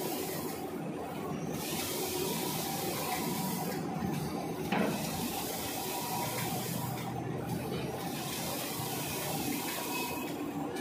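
Automatic band saw cutting machine for tissue paper rolls running: a steady mechanical hum under a hiss that drops out briefly about every three seconds in a repeating cycle. There is one sharp knock about halfway through.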